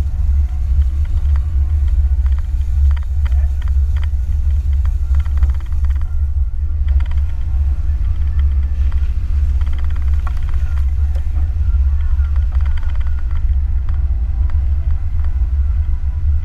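Subaru Outback 2.5 driving on a snowy road, heard from outside the car: a loud, steady low rumble of engine and running gear, with scattered clicks and knocks.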